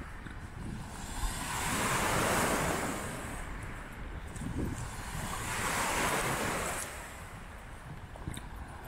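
Lake Michigan waves breaking and washing up on a sandy beach, rising and falling twice, with wind rumbling on the microphone.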